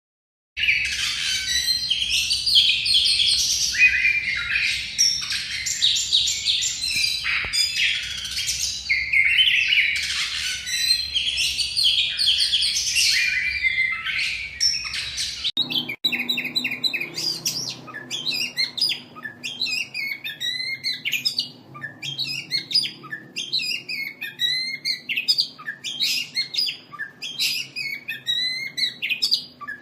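Oriental magpie-robin (kacer) singing: a dense, rapid run of varied whistles and chattering phrases. About halfway through, a different recording takes over, with more spaced, repeated whistled phrases and rattles.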